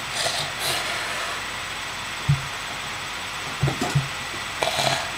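Handling noise from a sheet of drawing paper being moved close to the microphone: faint rustles near the start and end, with a few soft low thumps, one about two seconds in and two close together near four seconds.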